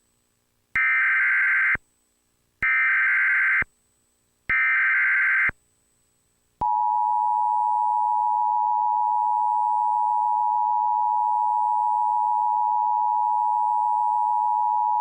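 Emergency Alert System header from a Trilithic EASyPLUS unit: three one-second bursts of SAME data tones, evenly spaced, then the steady two-tone EAS attention signal held for about eight seconds, announcing the next blizzard warning.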